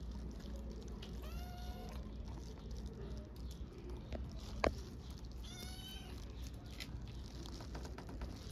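Hungry black-and-white kitten meowing for food: two short, high-pitched meows, about a second in and again past the middle, with a single sharp click between them.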